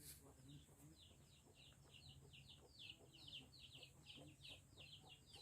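Chickens in a coop, faint: a steady run of short, high, falling peeps, about three or four a second.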